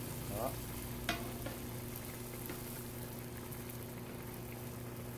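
Battered banana fritter sizzling steadily in hot oil during its second deep-fry, with a sharp clink about a second in.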